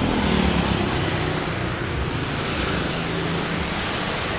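Street traffic: a motor vehicle passes close by on the road, its engine and tyre noise slowly dying away into a steady traffic hiss.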